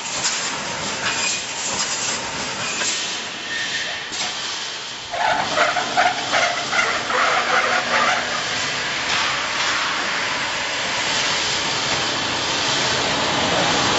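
Automatic wire-mesh welding machine running: a steady hiss with repeated clatter from the welding cycles. About five seconds in it grows louder, with metallic squealing and clanking for a few seconds, then settles back into a steady hiss.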